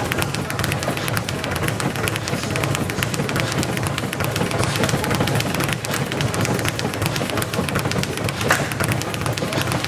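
Speed bag punched in a fast, unbroken rhythm, the bag rattling off its overhead rebound board in a dense, even patter of many hits a second.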